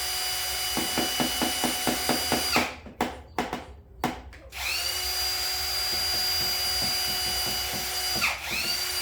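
Power drill motor whining steadily at high speed, letting off and spinning back up about three seconds in and again near the end, with a rapid regular clicking running under it at about five clicks a second.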